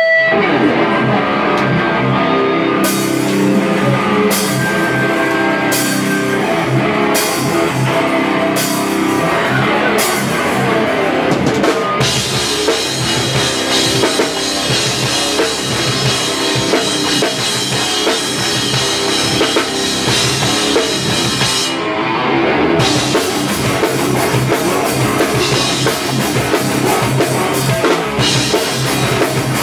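Hardcore band playing live: electric guitars, bass guitar and a drum kit. Cymbal crashes land about every second and a half at first, then give way to a steady cymbal wash that cuts out briefly near the 22-second mark before the cymbals come back in.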